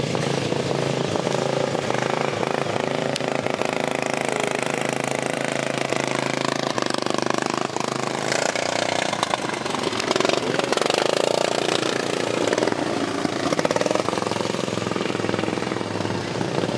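Racing lawn mower engines running at speed around a dirt track, their pitch shifting up and down as the mowers lap and change throttle.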